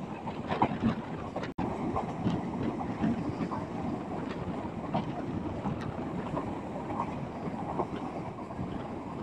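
Passenger train running along the track, heard from beside the carriage: a steady rumble of wheels on rail with irregular clicks and clacks, mixed with wind on the microphone. The sound cuts out for an instant about a second and a half in.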